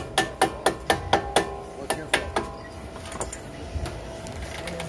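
Rapid series of sharp metallic knocks, each with a short ringing tone, about four a second, thinning out after about two and a half seconds.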